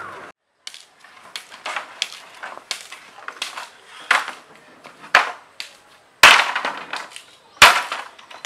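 A bamboo pole being struck again and again: about a dozen light sharp knocks, a few a second, then two much louder cracks near the end.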